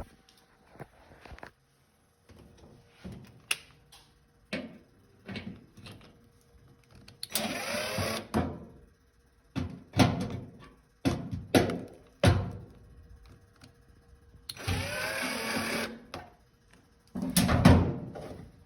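Clothes dryer parts being handled during repair: scattered knocks and clicks, with two longer scraping sounds and a loud knock near the end.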